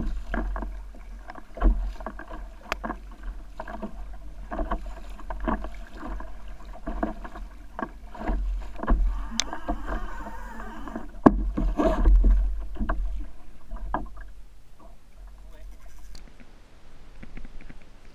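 Double-bladed kayak paddle dipping and splashing into the sea in a steady rhythm, about one stroke a second, over a low rumble. The strokes stop near the end.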